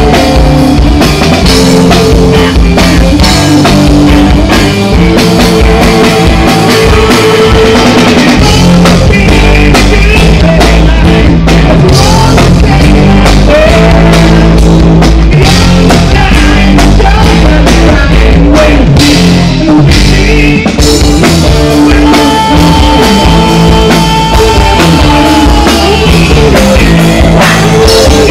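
Live rock band playing loud: drum kit, bass and electric guitars, with a singer at the microphone. A long held note sounds about three-quarters of the way through.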